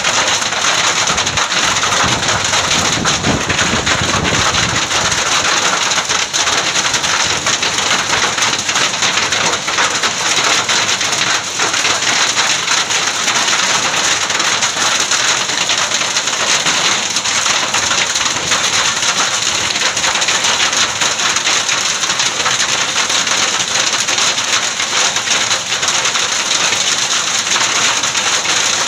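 Heavy hailstorm: dense hail and rain pelting the road and ground, a steady loud hiss made of countless small impacts. A low rumble sits under it in the first few seconds.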